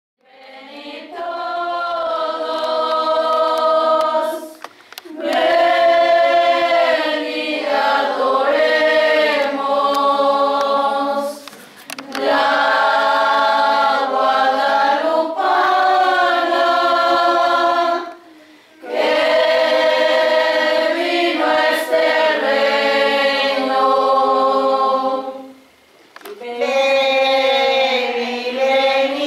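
Choir singing a religious hymn in long held phrases, with short pauses between phrases.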